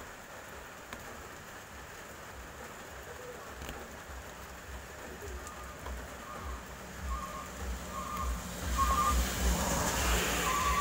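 Hand-pushed tyre-carving blade cutting a groove into wet, hard rubber tread, a rough scraping hiss that grows louder toward the end.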